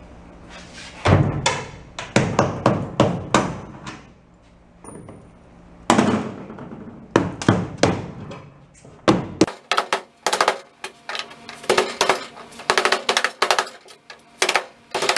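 Hammer blows driving the old bolts out through the boat's wooden transom, sharp strikes in quick runs of about two to three a second, with a lull of about two seconds partway through.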